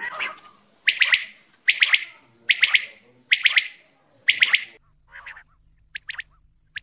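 Common quail (batair) giving its fast song: short clipped groups of two or three sharp notes, repeated a little more than once a second. About five seconds in, the calls turn fainter and a low hum starts beneath them.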